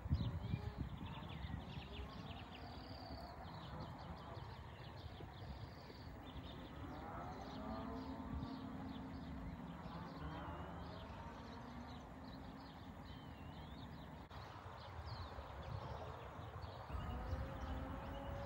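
Outdoor ambience dominated by birds chirping and whistling throughout. A longer animal call with a wavering pitch comes in around the middle. A low rumbling noise is loudest at the very start and again near the end.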